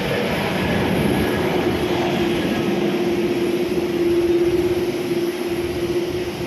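Jet airliner taking off, its engines at takeoff power: a loud, steady noise with a held hum running through it.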